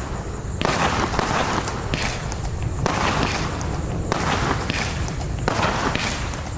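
Funke AC20-16-CG 16-shot green crossette fireworks battery firing shot after shot, about one every second and a half. Each shot is a burst of hiss and sharp cracks as the rising green stars split.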